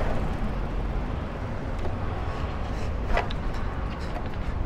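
Electric scooter rolling over sidewalk pavement: a steady low rumble, with a short click about three seconds in and a sharper knock at the very end.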